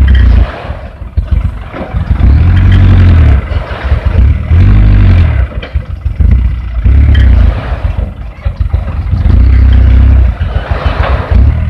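Diesel engine of a light dump truck revving in repeated surges, about every two seconds, while its hydraulic hoist tips the loaded bed to dump soil.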